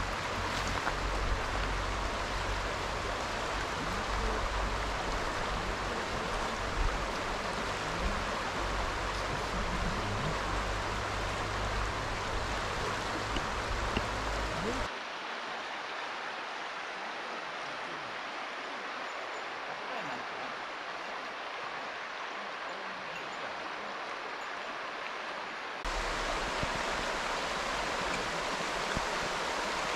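Steady rush of flowing water from a mountain stream. About halfway through the sound cuts abruptly to a quieter rush with less rumble, and a few seconds before the end it switches back to the fuller sound.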